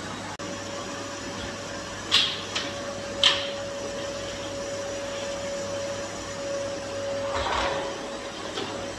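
Canister vacuum cleaner running with a steady hum, its nozzle pushed along a hard floor. Two sharp knocks come a little after two and three seconds in, and the suction noise swells briefly near the end.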